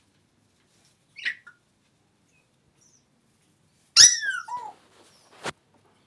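African grey parrot calls: a short high chirp about a second in, then a loud burst of falling whistled notes about four seconds in with a lower falling note after it, and a sharp click near the end.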